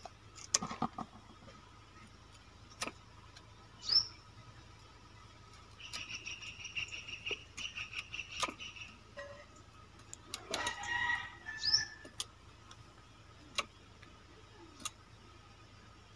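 Chickens calling, with a rooster crowing about ten seconds in. Sharp snaps come every second or two as malabar spinach stems are cut with a hand blade, and a few small bird chirps are heard.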